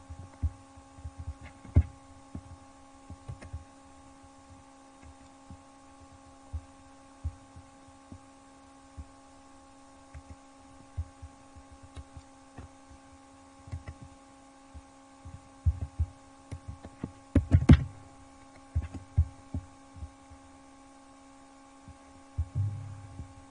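A steady electrical hum with a few even tones, under irregular low thumps and sharp clicks from a computer mouse being clicked and moved on a desk, with the loudest cluster of knocks about 17 seconds in.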